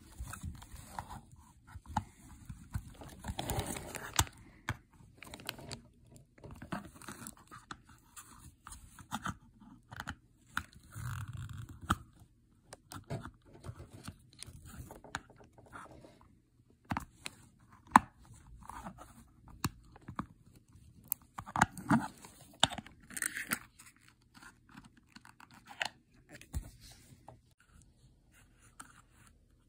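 Hard plastic handling noise as an anime figure and its pink plastic display base are moved and fitted together: scattered sharp clicks and taps between short scraping, rustling stretches.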